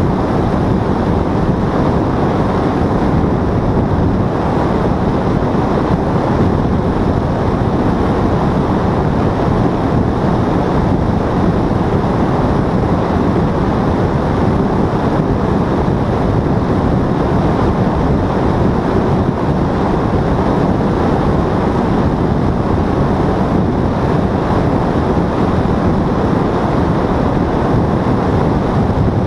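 Paramotor engine and propeller running steadily in flight, mixed with heavy wind rushing over the microphone.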